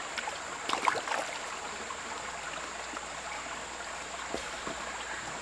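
Shallow creek flowing over rocks: a steady rush of running water. About a second in there are a few short splashes and knocks as a rock is set down on the intake pipe in the water.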